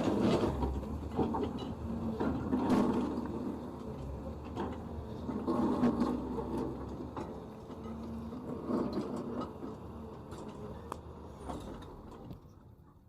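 Cat 320D2 hydraulic excavator working: the diesel engine and hydraulics swell and ease off about every three seconds as the machine cycles, with scattered sharp clicks. The sound dies down near the end.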